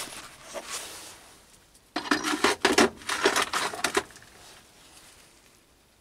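Steel tool holder being worked loose and lifted off a quick-change toolpost: a click, then about two seconds of metal clattering and scraping.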